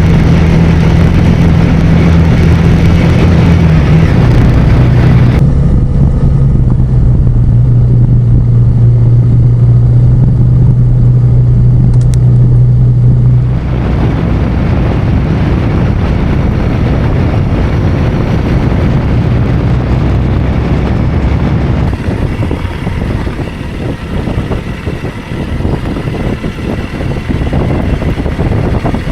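Honda CRF300 Rally's single-cylinder engine running steadily under way, with heavy wind noise on the microphone. The engine note drops in pitch a few seconds in, and about halfway through it gives way to wind and road noise alone.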